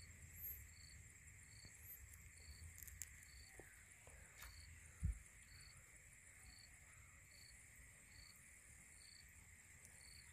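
Near silence with an insect chirping in short, even pulses, roughly three every two seconds, over a steady high hum. A soft thump about five seconds in.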